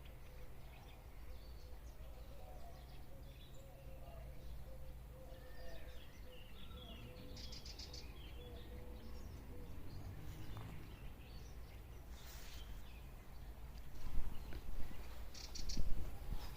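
Birds chirping and calling in scattered short notes over a steady low background rumble. A few louder sounds come near the end.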